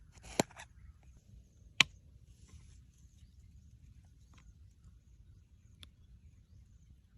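Two sharp knocks about a second and a half apart, the first with a brief scrape, then a few faint ticks over a low steady background.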